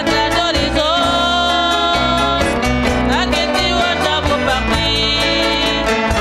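Live Cape Verdean band music: plucked guitars over a steady bass line, with a melody that slides between notes a couple of times.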